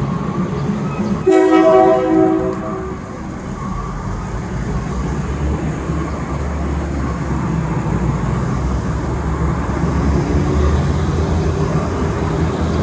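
Diesel locomotive of an excursion train sounding its horn about a second in, one loud blast lasting roughly a second and a half, then its engine running with a low steady drone that builds toward the end.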